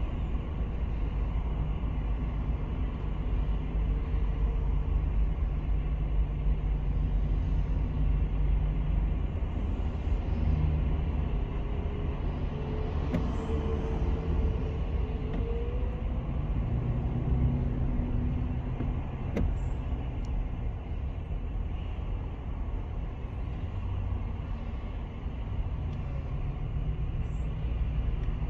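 A car driving along a road: steady low engine and tyre rumble, with a faint brief whine a little past the middle.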